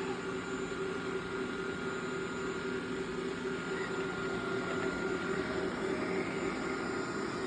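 Xiaomi Robot Vacuum S10+ running in its regular suction mode, a steady whirring hum of its fan and brushes as it cleans the floor.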